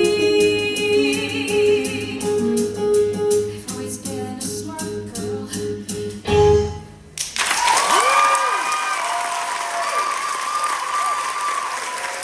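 Musical accompaniment with a steady beat and held notes ends on a final loud hit about six seconds in. After a brief pause, an audience breaks into applause with cheering whoops.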